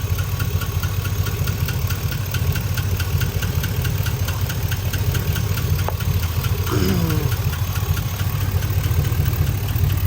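GMC truck's 5.3 L LS V8 idling with a rapid, even ticking from the valvetrain: a lifter tick on the driver's side, which the owner takes for a bad roller lifter in one of the rear cylinders.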